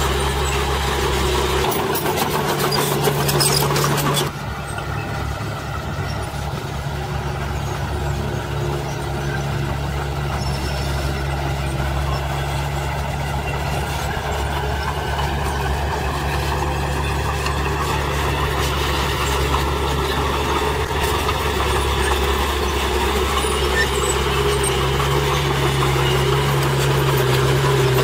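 Small Komatsu crawler bulldozer's diesel engine running steadily as it pushes a pile of soil. There is a burst of rattling about two seconds in, and the engine sound drops a little about four seconds in.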